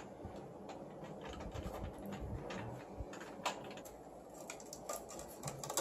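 Faint clicks and rustling of power cables and connectors being handled inside a desktop PC case, with one sharper click about three and a half seconds in.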